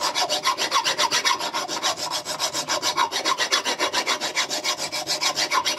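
Hand file rasping on a metal part clamped in a bench vise, in quick, even back-and-forth strokes, several a second. The edge is being filed down so the part no longer catches.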